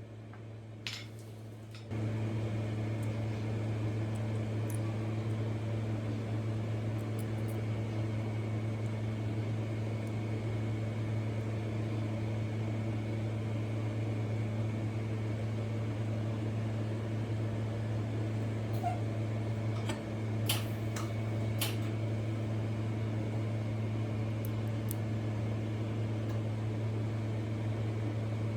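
Welding equipment humming steadily with its cooling fan, switching up to a louder, even hum about two seconds in. A few sharp clicks are heard, one near the start and a couple about two-thirds of the way through.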